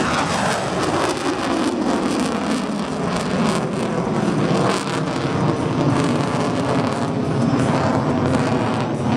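F-22 Raptor's twin Pratt & Whitney F119 turbofan engines producing loud, steady jet noise as the fighter climbs steeply and maneuvers overhead.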